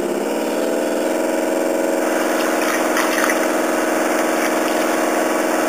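Simulated engine sound from a Graupner sound module in a radio-controlled model towboat, played through its onboard speaker: it steps up in pitch over the first second as the throttle is opened toward full, then runs steady. The model's propeller wash churns the water underneath.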